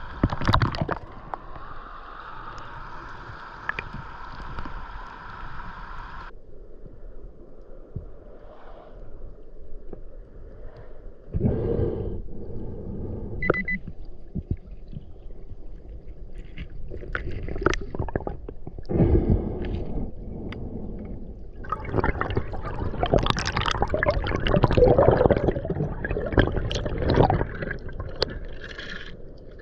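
Underwater gurgling and bubbling of water churning around the microphone, with a short high beep from an underwater metal detector about thirteen seconds in.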